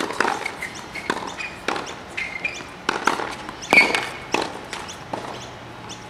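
Tennis balls struck by rackets and bouncing on a hard court during a practice rally: a string of sharp, irregular pops, the loudest about two-thirds of the way through.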